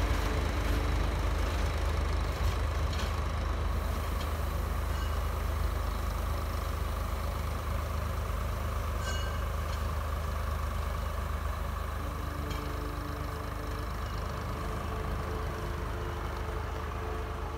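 Diesel locomotive engine running with a steady low rumble that slowly grows quieter; a couple of steady higher tones join in about two-thirds of the way through.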